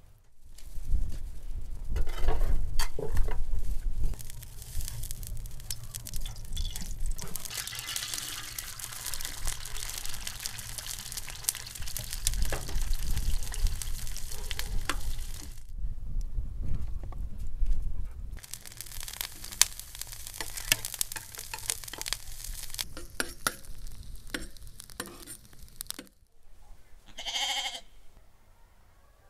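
Sliced carrots sizzling in hot oil in a large round cooking pan, stirred and scraped with a metal skimmer, with frequent clinks of metal on the pan. Near the end a sheep bleats once.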